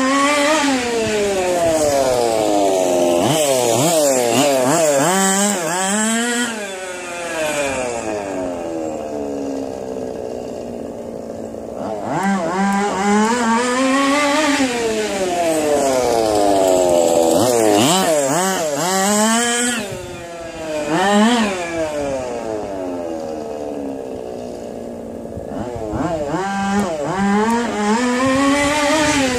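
HPI Baja 5B 1/5-scale RC buggy's small two-stroke gas engine, breathing through an exhaust made from a Budweiser beer bottle, being driven hard in laps: its throaty note climbs and falls with the throttle. It grows quieter twice, about a third of the way in and again past two-thirds, as the buggy runs farther off, then comes back loud.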